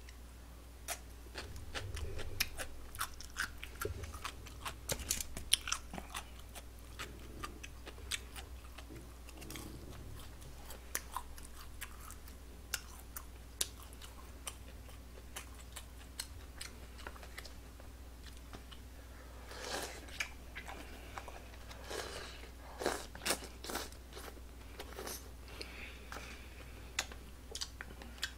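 A person chewing and biting food close to the microphone, a steady run of small wet mouth clicks and smacks, with a few denser bouts of chewing past the middle.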